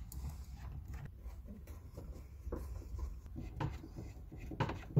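Phillips screwdriver backing out the screws that hold a Ford Festiva's gauge cluster into the plastic dash: faint scratchy turning with small scattered clicks, over a low steady rumble.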